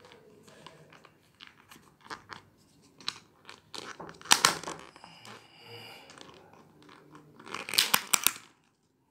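Clear plastic lid being pried and peeled off a takeaway meal tray: thin plastic crinkling and crackling, with louder bursts of crackles about four seconds in and again near the end.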